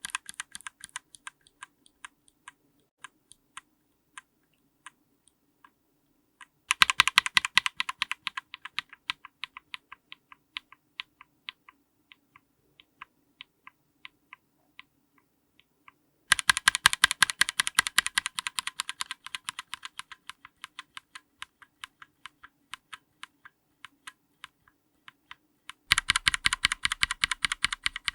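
A linear mechanical keyboard switch under a GMK keycap, pressed and released over and over and recorded up close. There are three runs: one about a quarter of the way in, one just past halfway and one near the end. Each starts as a fast, loud flurry of clacks, then slows to sparser, fainter single presses.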